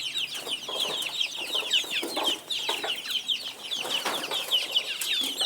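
A flock of young chicks peeping, with many short, high, falling peeps overlapping without a break, and a few lower, noisier sounds underneath.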